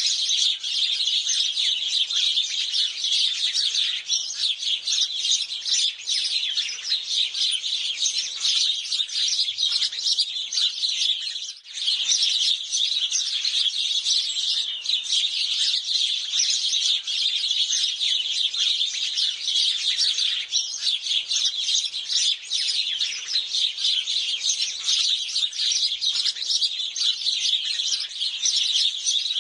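A flock of house sparrows chirping nonstop in a dense, overlapping chorus of short chirps. It breaks off for a moment about eleven seconds in.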